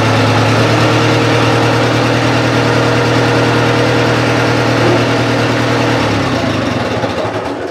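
Bobcat 610 skid steer's gasoline engine idling steadily after a cold start. About six seconds in, the idle turns uneven and the engine begins winding down, getting quieter toward the end.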